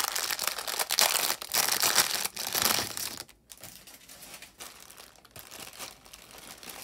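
Clear plastic bag crinkling and crackling as hands handle it, loud for about the first three seconds, then dropping to faint rustling.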